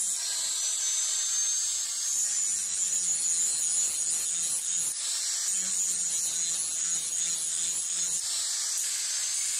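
Handheld angle grinder with an abrasive disc grinding a forged steel axe head: a steady high hiss of disc on metal over the thin whine of the grinder's motor.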